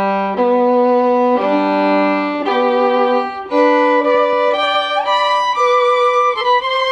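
Background music: a violin playing a slow melody of long held notes, each about a second, stepping from note to note.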